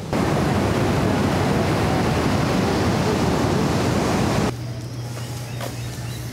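Ocean surf breaking on a beach, a loud, even wash of waves that cuts off abruptly about four and a half seconds in. A quieter background with a steady low hum and a few faint chirps follows.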